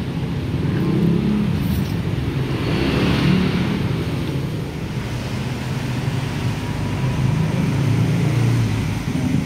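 Steady low rumbling background noise that swells and eases slowly, with no distinct knocks or clicks.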